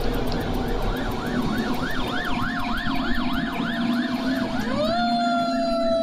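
Emergency vehicle siren in traffic, in a fast up-and-down yelp, about three cycles a second. Near five seconds in it switches to a single held tone that slowly drops in pitch. A steady low hum runs underneath.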